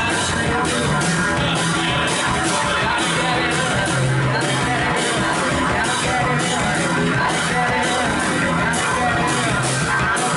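A rock band playing loud, live, with guitars and drums; the cymbals hit on a steady beat over sustained low notes.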